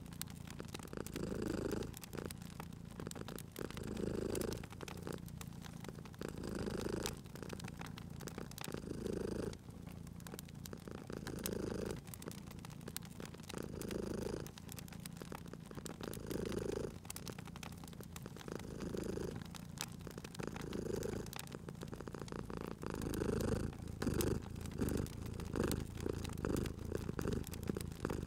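A domestic cat purring in slow waves, swelling with each breath about every two and a half seconds, the swells coming closer together near the end. Over it run the small pops and crackles of a wood fire.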